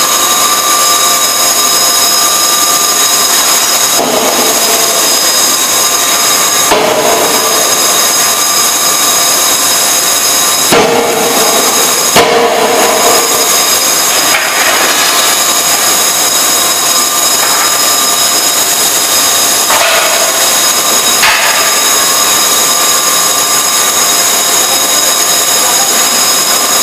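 Die forging hammer striking a hot workpiece in a few separate blows, the sharpest about four, seven, eleven and twelve seconds in, with weaker ones later. Under them runs a steady loud drone of shop machinery with several high steady whining tones.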